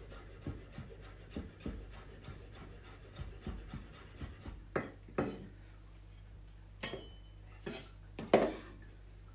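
Chef's knife chopping fresh herbs on a wooden cutting board in quick, even strokes, which stop about halfway. A few separate louder knocks follow on the board, the loudest near the end.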